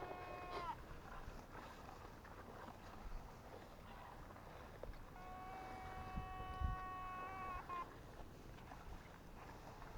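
Steady electric whine of an electrofishing shocker, a single tone with several overtones. One whine cuts off under a second in and another holds for about two and a half seconds from roughly five seconds in, over faint splashing and knocks from wading.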